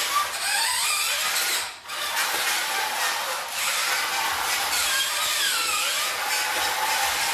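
Vintage Radio Shack Off-Roader 4x4 radio-controlled truck driving: its electric motor and gears whine, rising and falling in pitch with the throttle, with a brief letup about two seconds in.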